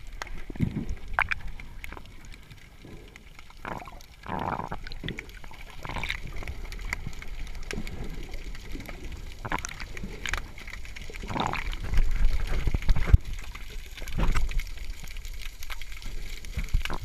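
Underwater water noise heard through a GoPro Hero3's waterproof housing: muffled sloshing and gurgling with irregular swishes and low thumps.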